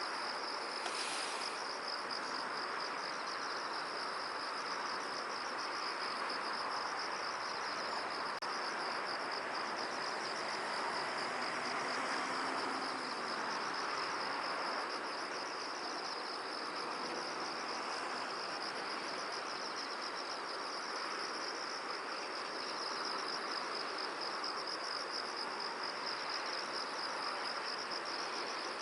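Crickets or similar insects trilling without pause in a fast, even pulse, high-pitched, over a steady rushing hiss of wind.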